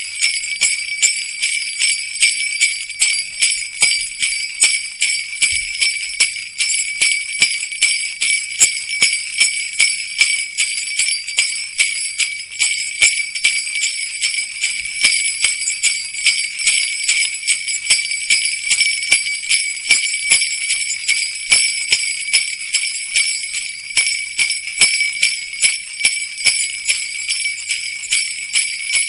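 Jingle bells shaken continuously: a dense, high-pitched jingling that goes on without a break, with uneven pulses of louder shakes.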